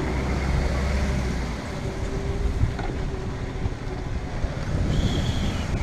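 Golf cart driving along, its motor running steadily with a faint whine, and wind buffeting the microphone.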